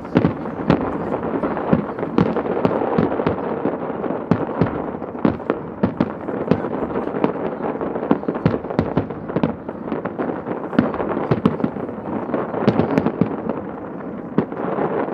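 Barrage of aerial firework shells bursting in rapid succession: dozens of sharp bangs, several a second, overlapping over a continuous rumbling haze.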